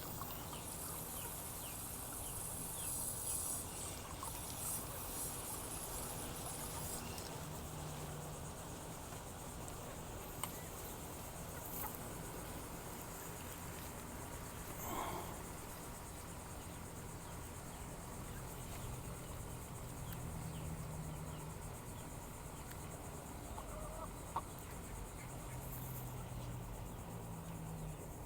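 Insects chirping high and steady throughout, with a single short call from a fowl about halfway through and a couple of sharp ticks.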